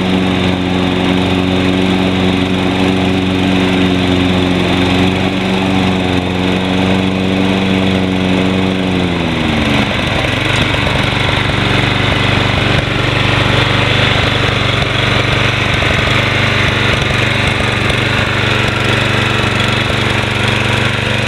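Toro Personal Pace lawn mower's Briggs & Stratton 190cc engine running steadily with the blade engaged. About nine seconds in, the pitch slides down and the sound settles into a lower, rougher steady hum as the mower keeps running.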